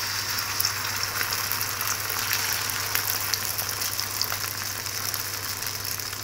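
Beaten egg with chopped onion poured into hot oil in a metal frying pan, sizzling steadily with many small crackles.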